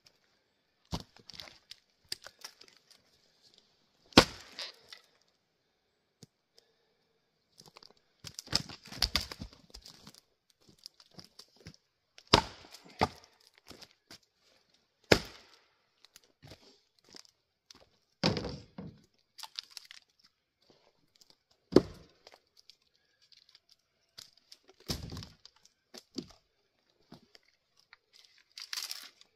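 Tamarack firewood being split by hand: about nine sharp strikes, roughly one every three seconds, some followed by the wood cracking and tearing apart.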